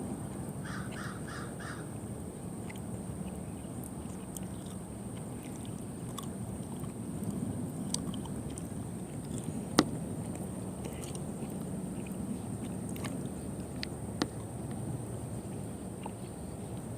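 A bird calls four times in quick succession about a second in, over a steady low hum. A few sharp clicks follow, the loudest about ten seconds in.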